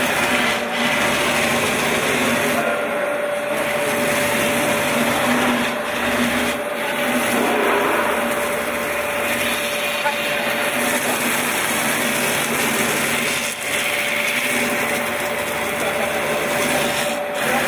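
CC-BS2540BG molding CNC router's spindle running with its cutter milling a block of foam: a steady whine over the continuous hiss of the cut.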